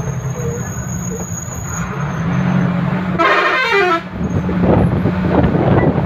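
Vehicle engine running with road noise, heard from inside a moving vehicle. A horn sounds for under a second about three seconds in, its pitch falling.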